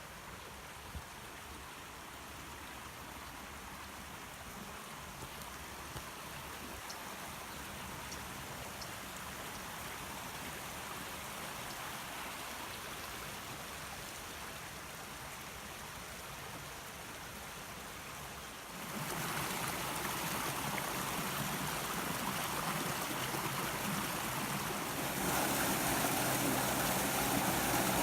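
Woodland stream flowing over rocks, a steady rush of water that jumps abruptly louder twice in the second half.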